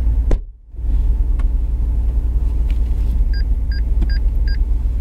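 McLaren 570S's twin-turbo V8 idling with a low steady rumble, heard from inside the cabin; the sound cuts out briefly about half a second in. From about three seconds in, a car warning chime beeps four times, about two and a half beeps a second.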